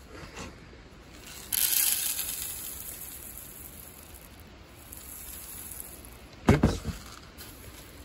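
Oat kernels poured into a scoop on a kitchen scale, weighing out a 200-gram sample: a hissing rattle that starts suddenly about one and a half seconds in and trails off. Later comes a brief thump.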